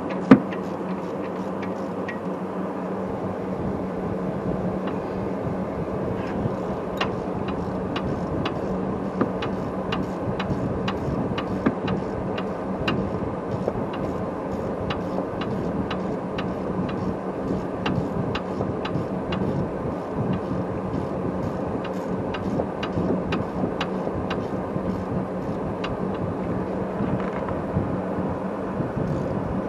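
Hand ratchet on a long extension clicking in short strokes as the rear brake caliper bolts are run in, a few clicks a second, over a steady background hum. One sharp knock sounds right at the start.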